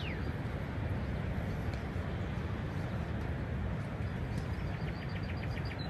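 Wind buffeting the microphone as a steady low rumble. Over it a bird calls: a falling whistle right at the start, and a rapid run of about ten short high notes near the end.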